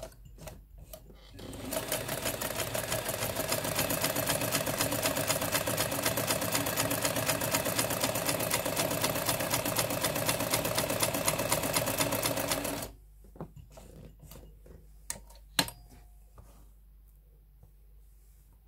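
Vintage Jones M949 sewing machine running steadily for about eleven seconds, stitching a zigzag seam with a fast even clatter of the needle mechanism, then stopping abruptly. A few separate sharp clicks follow after it stops.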